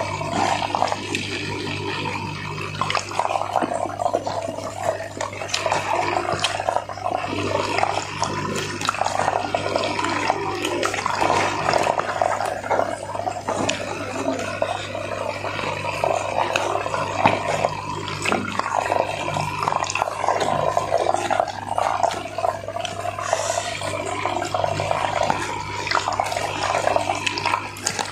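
Close-miked eating sounds: wet chewing and lip-smacking of fried chicken and rice eaten by hand, with a paper food box crinkling as it is handled. A steady low hum runs underneath.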